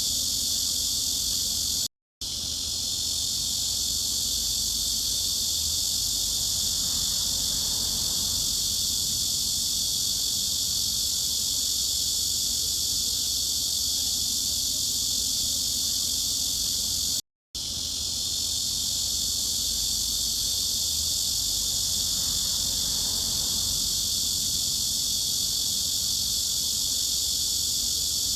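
Cicadas buzzing in a dense, steady, high-pitched drone. It cuts out completely for a split second twice, about two seconds in and again about seventeen seconds in, then swells back, as at the seam of a repeating loop.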